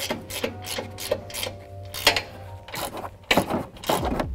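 Ratchet wrench clicking in short, uneven runs as the nuts on a truck's front strut top mount are run down and tightened.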